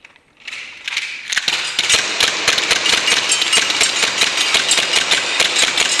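Gas blowback airsoft pistol firing a fast, steady string of shots, starting about a second and a half in, each shot a sharp crack with the slide cycling.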